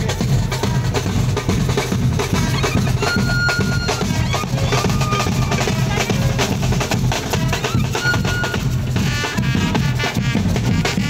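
Street drum band playing: bass drums and snares in a dense, driving rhythm. Short high held notes sound over the drumming about three seconds in and again about eight seconds in.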